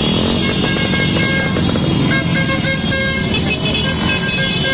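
Many motor scooters and motorcycles riding past in a dense procession, their engines running together, with several short horn toots.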